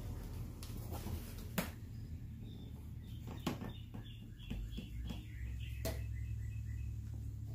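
A few sharp clicks and taps of hands working plastic parts and a hose connector in a car's engine bay, over a steady low hum, with a run of faint high chirps in the middle.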